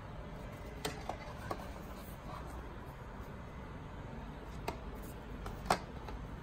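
Cardboard eyelash packaging boxes being handled: a few short taps and clicks over a low steady hiss, the sharpest one near the end.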